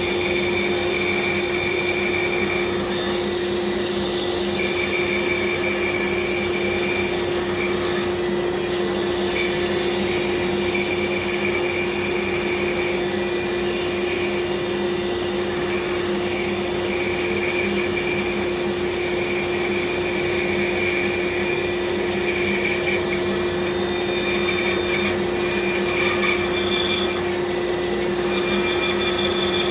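Bandsaw running steadily with a constant motor hum, its blade cutting through a block of wood.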